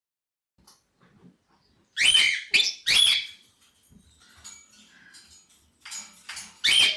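Cockatiel chicks giving raspy begging calls. Three loud calls come close together about two to three seconds in, then fainter chirps, and another loud call near the end.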